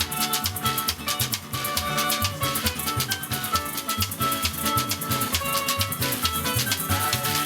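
Caribbean band music, a mento-style tune: maracas shaking on a quick, steady beat over a bouncing bass line, with drums and a plucked-string melody.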